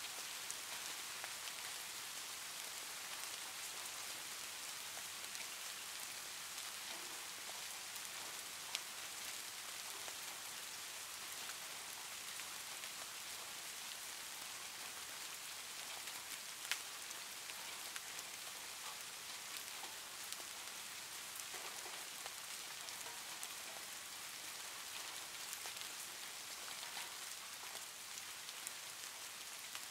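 Soft steady rain from an ambient rain recording: an even hiss with scattered drop ticks, and two brief sharper clicks partway through.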